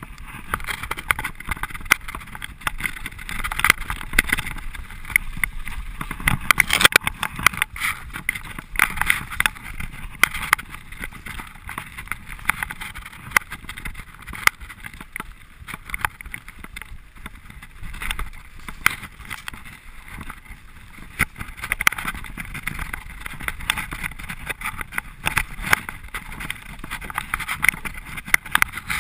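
Mountain bike descending a rough dirt and rock trail, heard from a camera mounted on the rider: a constant rush of wind on the microphone, with frequent sharp clattering knocks as the tyres and bike frame hit rocks and ruts.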